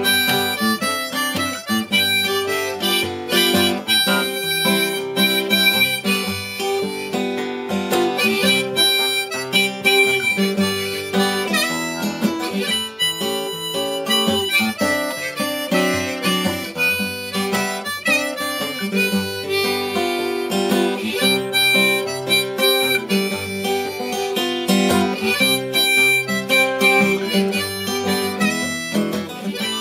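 Harmonica played in a neck rack over strummed acoustic guitar: an instrumental break between verses of a country-blues song.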